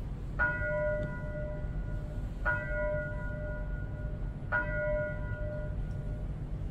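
Small altar bell struck three times, about two seconds apart, each strike ringing clearly and dying away: the bell rung at the elevation of the chalice at the consecration of the Mass.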